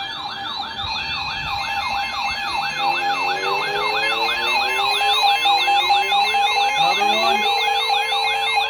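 Warning siren sounding: a fast repeating falling yelp, about three sweeps a second, over a steady tone. From about three seconds in, a second, lower siren slowly rises in pitch and levels off near the end.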